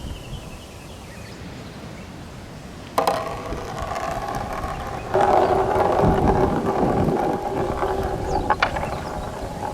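Marbles rolling along a handmade marble run track of wooden slopes and rain-gutter rails, starting suddenly about three seconds in as a steady rolling rumble with a ringing hum. It gets louder about five seconds in, and a few sharp clicks come near the end. Light wind on the microphone before the marbles arrive.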